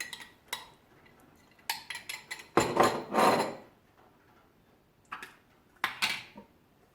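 A metal teaspoon clinking and scraping against kitchenware as mustard is scooped out a spoonful at a time. There are scattered light clicks, with a louder rough scraping rustle about two and a half seconds in that lasts about a second.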